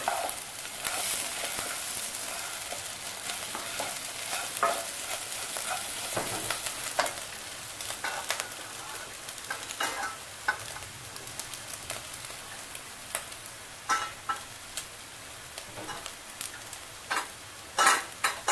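Soaked Dehradun rice sizzling as it fries in oil and ghee in a nonstick pot, stirred and turned with a wooden spatula. The sizzle is strongest in the first half. Through the rest come scattered scrapes and taps of the spatula against the pot, a few sharper ones near the end.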